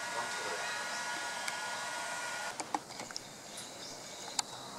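Steady outdoor background noise with faint, even high tones at first. About halfway through it turns a little quieter and a few sharp clicks sound.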